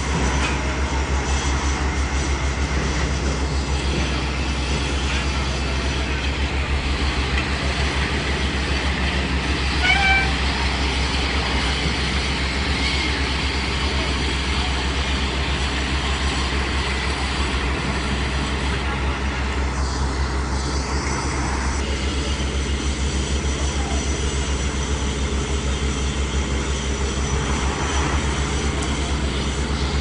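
Heavy diesel machinery running steadily at a construction site: the engines of a TP570 trailer concrete pump and the concrete mixer truck feeding it, a deep, even rumble. A brief high-pitched call cuts through about ten seconds in.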